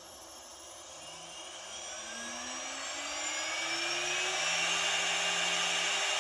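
A 2.2 kW air-cooled CNC spindle spinning up under its VFD to 24,000 RPM. Its whine rises steadily in pitch and grows louder over the rush of its built-in cooling fan blowing through the motor, then levels off at full speed about four and a half seconds in.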